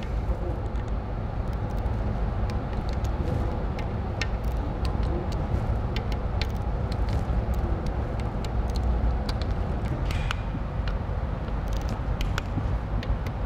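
Steady low rumble of workshop background noise, with scattered light clicks and taps from hand tools and fasteners being worked on the robot's metal housing.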